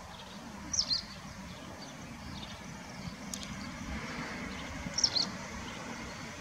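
Small birds chirping: two short clusters of high chirps, about a second in and again about five seconds in, over a steady low outdoor rumble.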